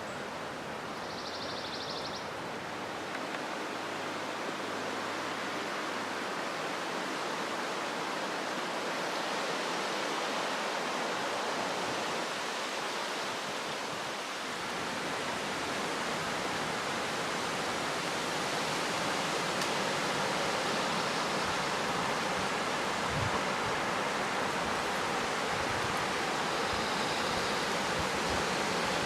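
Steady rushing of wind outdoors, slowly building, with a few low bumps of wind buffeting the microphone near the end.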